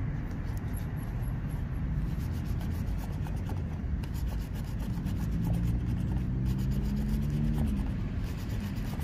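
A coin scratching the latex coating off a paper scratch-off lottery ticket in quick, repeated rasping strokes. A low vehicle engine hum comes up in the background from about five seconds in and fades near eight seconds.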